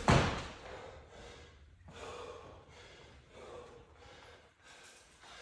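An athlete breathing hard after a set of pull-ups, with a loud gasping breath about once a second. A loud sharp hit opens it as he comes off the bar.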